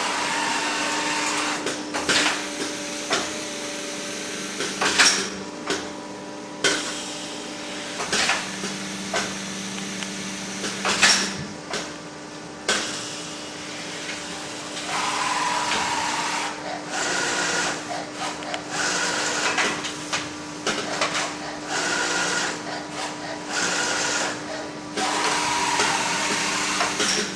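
Auto-loading CNC scoring machine for printed circuit boards running through its cycle: a steady hum, sharp clacks of its moving parts every few seconds, and short motor whines twice in the second half.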